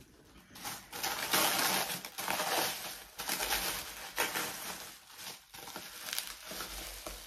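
Packing wrap crinkling and rustling as an item is unwrapped from a box: an irregular run of crackles starting about half a second in.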